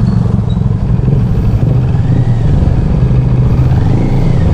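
CFMoto 400NK parallel-twin motorcycle engine running steadily at low revs while the bike is being parked, still on its stock exhaust.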